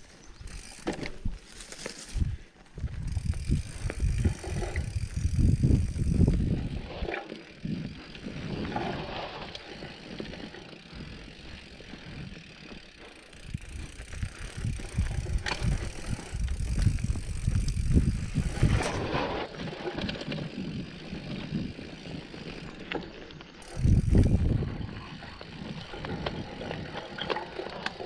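Mountain bike being ridden along a dirt trail: tyres rolling over the ground and the bike rattling over bumps, with louder rumbling stretches a few times.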